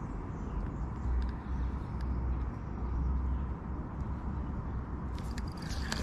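Low steady rumble on an outdoor microphone, with faint handling noise and a few small clicks near the end, as a fixed-spool spinning reel is wound in with a fish on the line.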